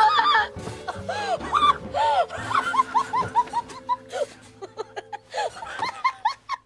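A woman laughing in a long chain of short 'ha' pulses, over soft background music with steady held notes.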